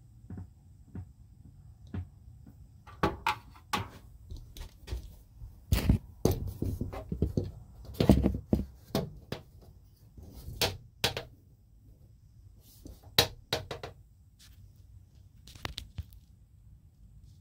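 Irregular clicks and knocks of handling close to the microphone, with a few heavier thumps around the middle and a faint low hum beneath.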